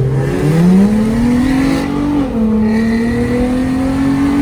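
Infiniti G35's V6 accelerating hard, its note climbing steeply, dropping with an upshift about two seconds in, then climbing again under load.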